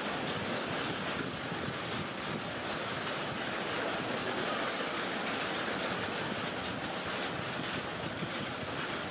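Heavy rain falling steadily on a lake and the trees around it: a dense, even hiss with no thunder.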